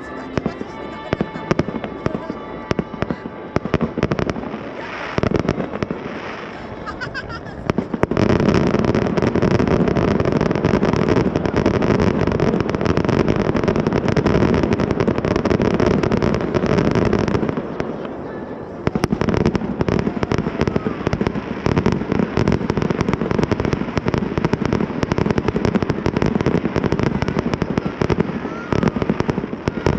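Fireworks display: a run of bangs and crackles that thickens about a quarter of the way in into a dense, loud barrage of overlapping bursts lasting about ten seconds, then eases back into a steady stream of separate bangs.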